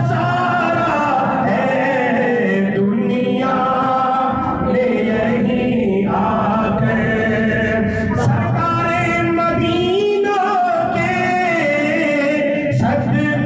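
A man singing a manqabat, a devotional poem in praise of Khwaja Gharib Nawaz, in long held, wavering melodic lines.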